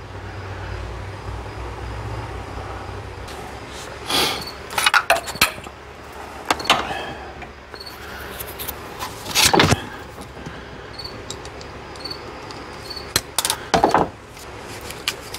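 Handling noise from soldering a fuel pump wire: irregular clicks, rattles and rustles as the wires, the soldering iron and a plastic wiring connector are moved, the loudest a knock about nine and a half seconds in. A low hum runs under the first few seconds.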